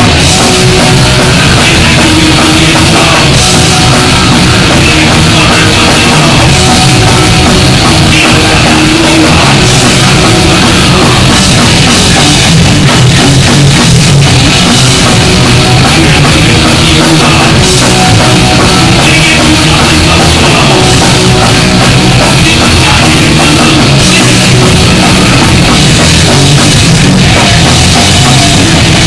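Live punk band playing loud on electric guitar, bass guitar and drum kit.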